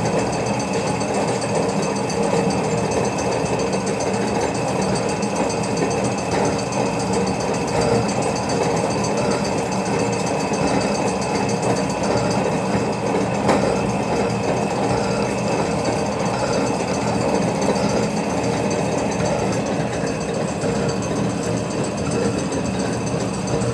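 Metal slotting machine running, its ram stroking up and down as the cutter slots splines into a part: a steady, repetitive mechanical clatter over a constant hum.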